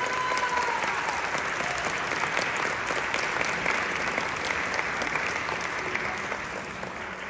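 Audience applauding at the end of a mariachi song, with the last sustained note dying away in the first moment; the clapping slowly thins out toward the end.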